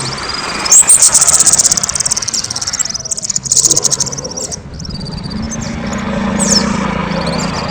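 Kemade songbird singing loudly. A rapid high trill starts about a second in and lasts some three seconds, then gives way to scattered short upslurred whistles. A steady low hum sits underneath in the second half.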